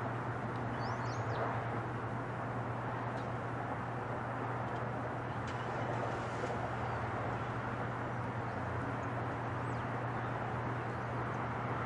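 Boeing 747-8 freighter's four GEnx jet engines rumbling steadily as it climbs out after takeoff, with a few bird chirps about a second in.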